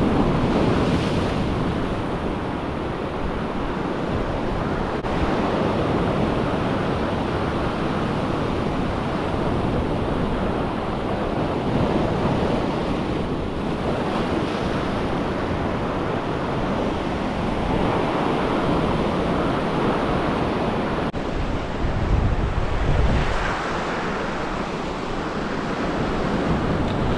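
Ocean waves breaking and washing over a rocky reef shelf, a steady surging hiss of surf that swells and eases with each set. Wind buffets the microphone, most heavily in a low rumble about 22 seconds in.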